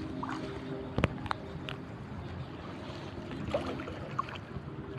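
Shallow seawater sloshing and trickling around rocks as someone wades and picks through them by hand. There are two sharp clicks about a second in, and a faint steady hum underneath.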